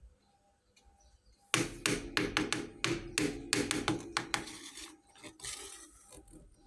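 Small toy kitchen pieces clattering as they are handled and set down: a quick run of sharp clicks and knocks that starts about a second and a half in and thins out near the end.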